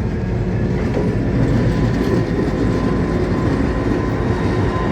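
White Pass & Yukon Route train rolling past at close range: a steady, loud rumble of wheels on rail with a thin, steady high-pitched whine over it.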